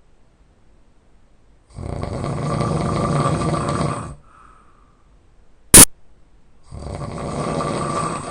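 A person snoring loudly: two long snores of about two and a half seconds each, starting about five seconds apart. Between them comes a single very loud, sharp click.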